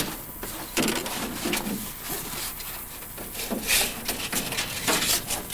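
Irregular knocks and rubbing of things being handled, with a few faint murmured voices.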